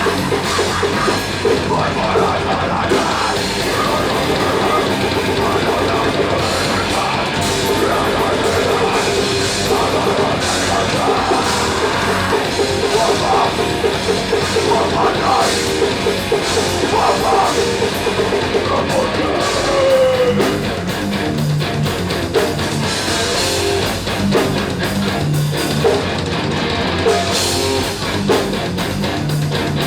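Loud rock music with drums and electric guitar.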